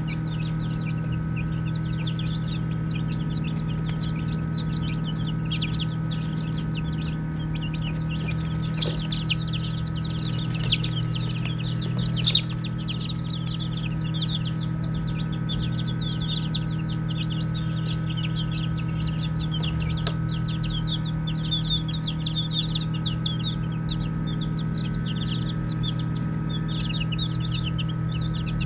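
A flock of baby chicks peeping constantly, many short high-pitched calls overlapping, over a steady low hum. A few brief knocks about a third of the way in and again past the middle.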